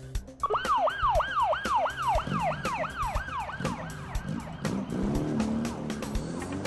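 Police car siren in a fast yelp, about four sweeps a second, starting about half a second in and fading away after about four seconds.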